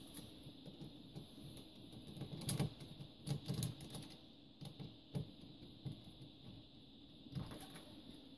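Faint, scattered clicks and taps as a small screwdriver backs a screw out of a plastic PLC module housing and the module's parts are handled.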